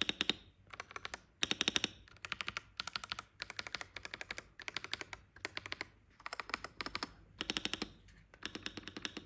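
Akko Dracula Castle 5075 mechanical keyboard typed on in quick bursts of keystrokes with short pauses between, a muffled sound, the backspace included.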